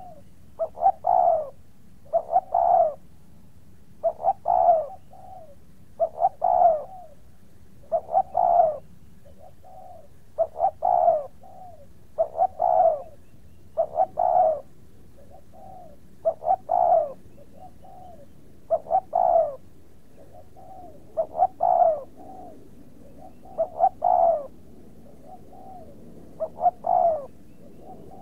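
A bird calling in the same short phrase over and over, about once every two seconds. Each phrase is a couple of quick low notes followed by a longer one.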